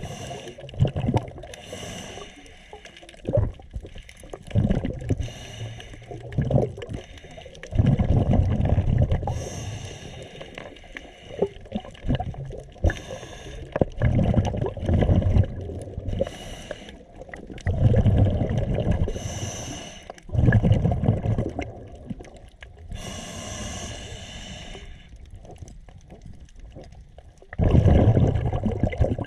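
Scuba diver breathing through a regulator, several breaths in a row: each breath is a hissing inhale followed by a loud burst of rumbling, bubbling exhaust.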